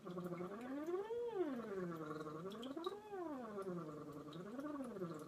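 A woman humming through a straw into a cup of water, a voice-therapy straw-phonation exercise, the water bubbling as her voice slides smoothly up and down in pitch three times.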